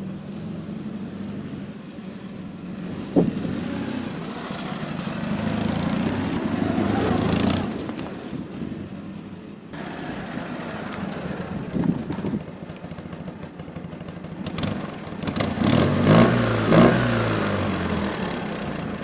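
Ural boxer-twin motorcycle engine with 'bomb' mufflers running under way on a test ride, revs climbing and dropping as it accelerates and shifts, with a sharp knock about three seconds in.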